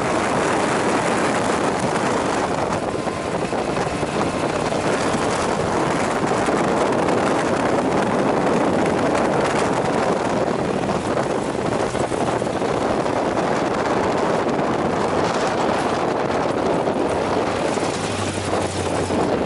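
Sand buggy engine running steadily as the open-frame buggy drives over the dunes: a loud, continuous mechanical noise.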